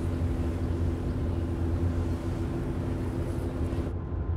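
Steady low drone of a car ferry's engines, with a constant hum and a hiss of wind and water on the open deck. About four seconds in it cuts to the duller engine drone inside the passenger salon, the hiss gone.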